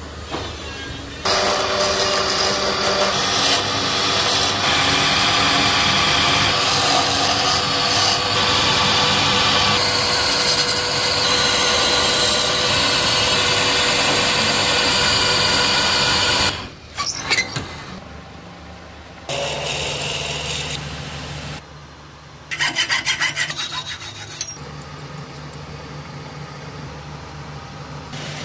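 Wood lathe spinning a wooden blank while a turning tool cuts into it, a loud steady scraping over the motor's hum. About sixteen seconds in it breaks into shorter, quieter stretches of tool work with the lathe running.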